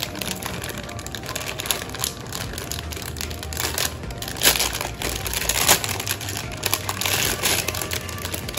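Clear plastic polybag crinkling and crackling as it is handled and pulled open, with a couple of sharper crackles about halfway through.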